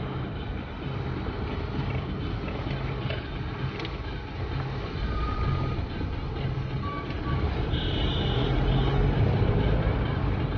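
Car driving along a road, heard from inside the cabin: steady engine and tyre rumble.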